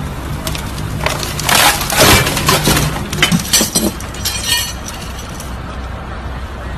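Broken glass clinking and crunching in a busy run of sharp clinks lasting about three seconds, thinning out near the end, over the steady low hum of an idling engine.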